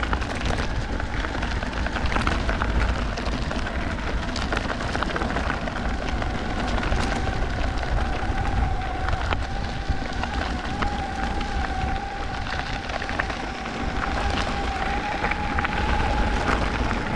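Electric skateboard rolling over rough off-road ground: a steady low rumble with a constant crackle of small clicks from the wheels on grit and gravel. A thin whine from the board's electric motor comes through about halfway in and creeps slightly up in pitch.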